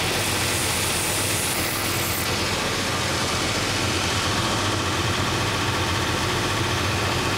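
Purpose-built last-sanding machine with 3-inch 24-grit belts running with a steady low hum. For about the first two seconds a wooden shoe last is held against a belt drum, adding a higher grinding hiss as the coarse belt takes off wood.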